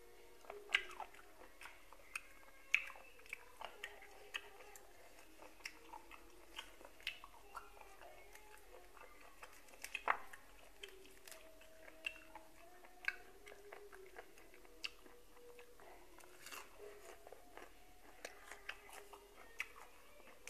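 Close-up chewing of boiled golden apple snail meat and fresh greens: irregular soft crunches and mouth clicks at a low level.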